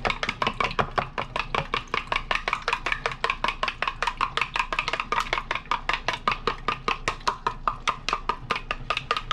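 Egg and milk being beaten in a cup: a utensil clinks rapidly against the cup's sides, about six or seven strikes a second, each with a short ring, and stops near the end.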